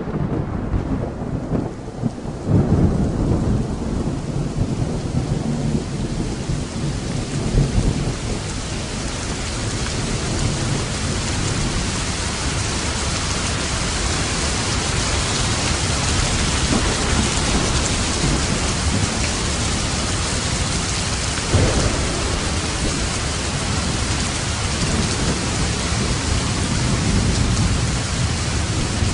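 Steady heavy rain with thunder: rolling rumbles over the first several seconds, then a short, sharper thunderclap later on.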